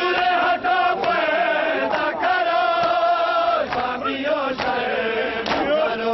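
A crowd of male mourners chanting a noha in unison, with sharp hand slaps on bare chests (matam) landing roughly once a second.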